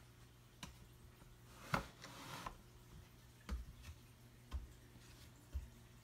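Handling noise from a phone being moved about while filming: a few scattered clicks and soft thumps, the sharpest about two seconds in, then low thumps about once a second, over a faint steady hum.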